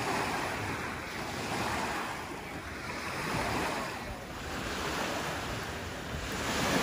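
Small waves washing onto the shore, swelling and fading every second or two, with wind buffeting the microphone.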